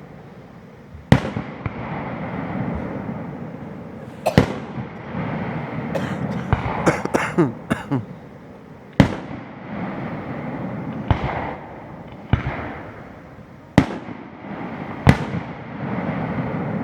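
Aerial fireworks display: about seven shells bursting with sharp booms at uneven intervals, each trailing off in a rolling, echoing rumble. A quick run of sharper cracks comes about halfway through.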